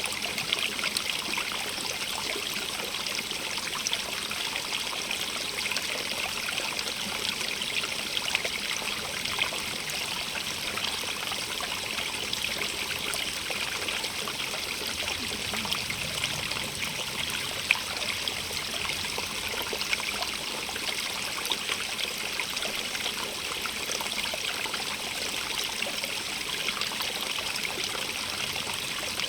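Small stream running steadily over rocks: an even rushing hiss with lots of fine trickling and splashing, and the odd brief louder splash.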